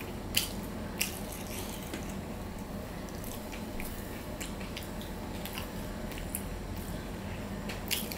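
Fingers mixing and squeezing rice with mashed potato on a stainless steel plate: soft squishing with scattered small clicks against the metal, two sharper clicks about half a second and a second in.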